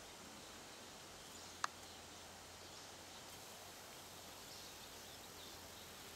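Faint outdoor background noise with one sharp click about a second and a half in, and faint high chirps in the second half.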